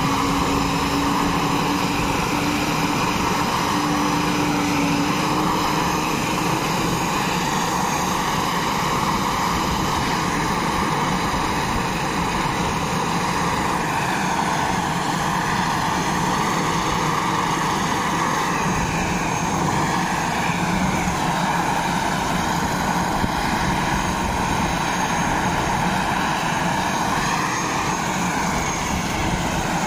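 Airbus H145 helicopter running on the ground with its main rotor turning: a steady mix of turbine whine and rotor noise. A lower tone in it rises slightly over the first few seconds.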